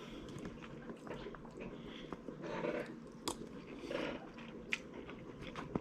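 A person chewing a mouthful of vegetable fried rice, with a few faint clicks.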